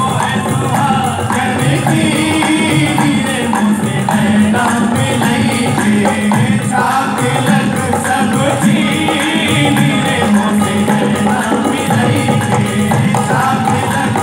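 Live qawwali: a group of men singing together, holding long bending notes over a steady drum beat with keyboard accompaniment.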